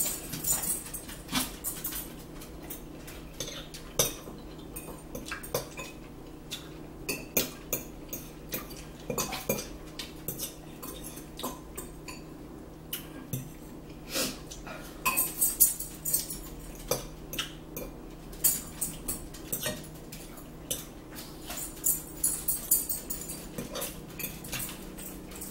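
Metal fork clinking and scraping against a ceramic salad bowl: short, sharp, irregular clinks that come in small flurries a few times.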